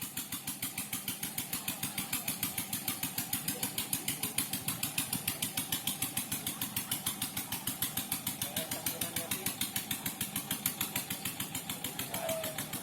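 Small engine running steadily with a rapid, even pulsing beat.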